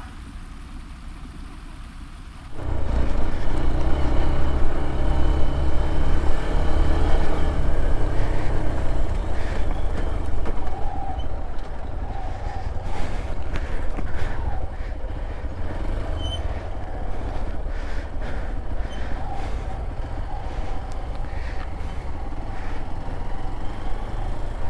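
A vehicle engine running steadily under way on rough ground. It comes in suddenly about two and a half seconds in, with scattered knocks and rattles over a low rumble.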